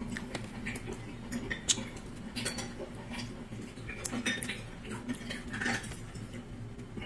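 Plastic fork clicking and scraping against a plastic takeout tray while picking at food in sauce, in irregular small taps, over a steady low hum.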